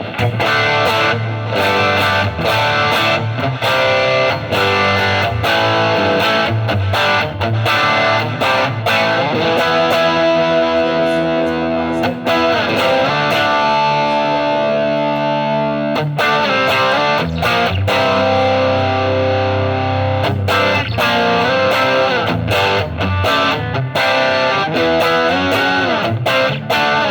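Overdriven electric guitar played through a Hotone Ampero 2 modelling unit: a Marshall Bluesbreaker-style amp model with a Fender Tweed 1x10 cabinet IR, pushed by a TS9-style overdrive. It plays picked lines and riffs, with held, ringing chords around the middle.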